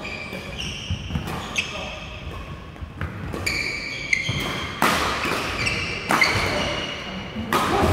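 Badminton rally: sharp smacks of rackets hitting the shuttlecock every second or two, the hardest hits in the second half, with sports shoes squeaking on the court floor between shots.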